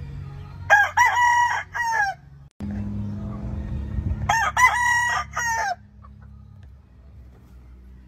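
A gamecock crowing twice, each crow a rising-and-falling cock-a-doodle-doo of about a second and a half. The crows come a few seconds apart over a steady low hum.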